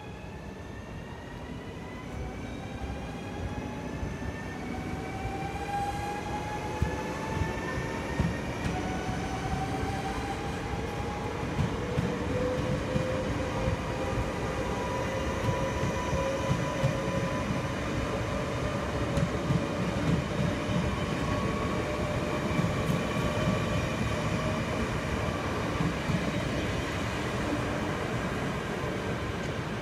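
NS double-deck electric train pulling away and running past: the traction motors whine in several tones that climb steadily in pitch as it picks up speed, over a rumble of wheels on rail that grows louder. From about a quarter of the way in, sharp clicks come as the wheels cross rail joints.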